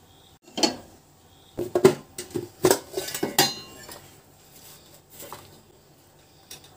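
Aluminium pressure cooker clanking against the metal pan support of a gas stove as it is set down and shifted into place: a string of clanks in the first few seconds, one with a short metallic ring, then lighter knocks near the end.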